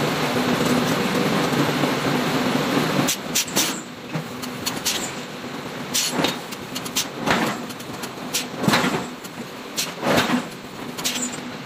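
Red-hot iron being forged: a steady machine hum with a low tone stops about three seconds in. Then come about a dozen sharp knocks and clanks at uneven spacing, roughly one a second.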